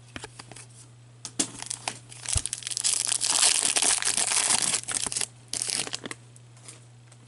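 A foil trading-card pack wrapper being torn open and crinkled in the hands, a dense crackle that is loudest around the middle, followed by a few shorter crinkles. Light clicks of cards being handled come first.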